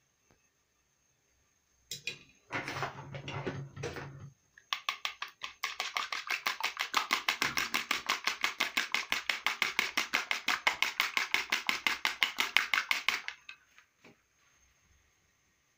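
A raw egg beaten with a plastic spoon in a plastic bowl: fast, even clicking strokes, about seven a second, running for around eight seconds from about five seconds in, after a few short scrapes and taps.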